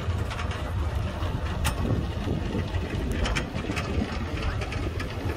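Cable-suspended airplane-shaped ride running along its steel cable: a steady low rumble with scattered clicks and rattles from the trolley travelling on the line.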